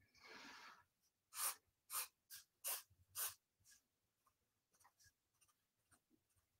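Black felt-tip marker drawing quick strokes on sketchbook paper: about five short swipes in close succession between one and three and a half seconds in, then a few faint taps.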